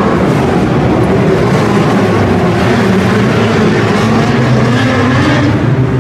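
Several midget race car engines running together on an indoor dirt track, a loud steady drone of overlapping engine notes that waver in pitch as the cars circle.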